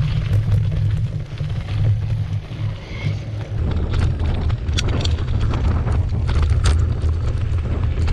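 Wind rushing over the microphone of a camera on a moving mountain bike, with the knobby tyres rolling over dirt and grass and the bike clicking and rattling over bumps.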